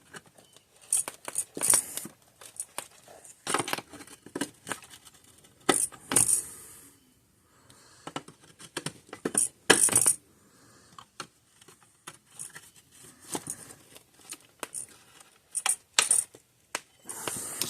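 Irregular light metallic clicks and clinks of small metal parts and hand tools being handled on a workbench, with a couple of louder knocks.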